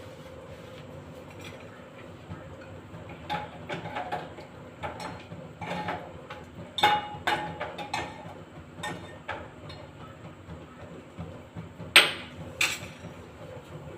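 Metal kitchen utensils and pots clinking and knocking: a run of sharp taps over several seconds, then two louder knocks with a short ring near the end, over a steady low hum.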